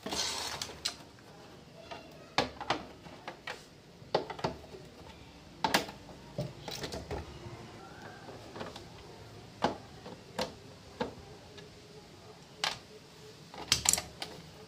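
Irregular clicks and knocks of a screwdriver turning out the screws on the plastic base of a mixer grinder, with the housing being handled; the sharpest cluster of clicks comes near the end.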